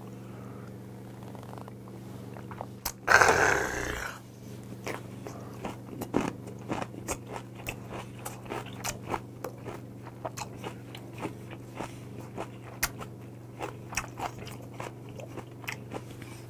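Close-miked chewing of raw mullet sashimi and crisp water-kimchi, with sharp irregular crunching clicks two or three times a second. About three seconds in, one loud breathy exhale after a shot of soju.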